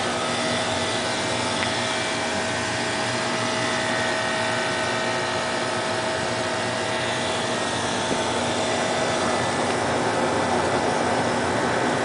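Small round cooling tower running: its fan and the water falling through the fill make a steady rushing noise with a faint steady hum over it.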